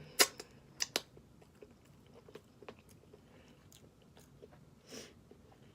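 Snow crab leg being eaten close to the microphone: a few sharp cracks and clicks in the first second, the loudest about a quarter second in, then quieter clicks of chewing.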